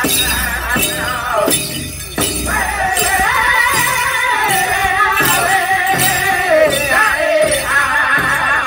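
Powwow drum and singers performing a chicken dance song, with a steady drumbeat of about one and a half strokes a second. The singing pauses briefly about two seconds in, then comes back as a high melody that steps down in pitch.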